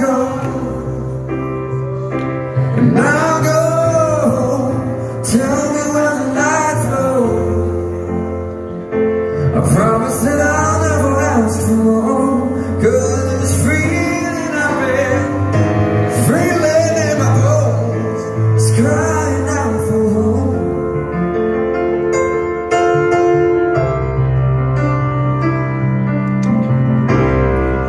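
A man singing a song live while playing a grand piano, with sustained low keyboard notes underneath.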